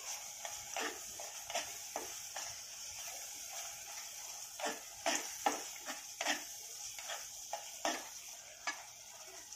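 Masala paste frying in oil in a kadhai being stirred, the utensil scraping the pan in about a dozen uneven strokes, strongest about halfway through, over a steady sizzle.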